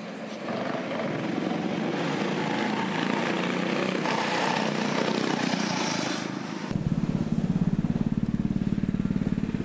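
Go-kart's Honda GX160 single-cylinder engine running hard and growing louder, then about seven seconds in switching abruptly to a low, steady, rapid putter at idle.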